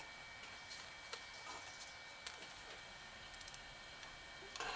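Faint scattered clicks and light taps of small metal parts being handled, with a quick run of ticks about three and a half seconds in and a louder burst of noise near the end.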